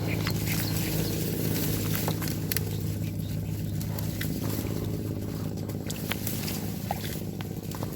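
A steady low motor hum with scattered light clicks.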